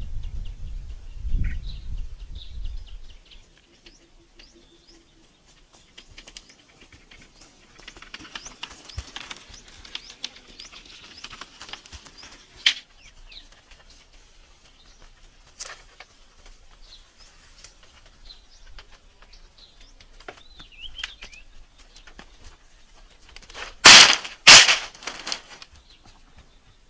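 Outdoor ambience with faint scattered bird chirps and some rustling, after a low rumble in the first few seconds. Near the end come two loud, sharp knocks about half a second apart.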